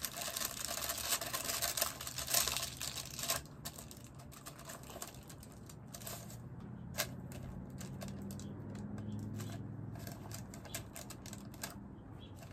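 Crinkling and rustling as silicone-gloved hands press melted HDPE plastic pieces together on parchment paper, busiest for the first three seconds or so, then scattered light clicks and taps. A faint low hum comes in around the middle.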